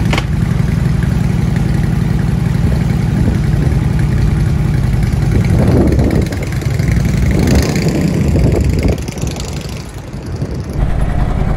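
Harley-Davidson Street Glide V-twin through Python True Dual exhaust pipes, idling steadily, then revving as the bike pulls away about halfway through, and growing fainter as it rides off.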